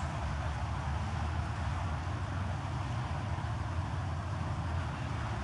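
Steady hiss of falling rain over a strong, constant low rumble.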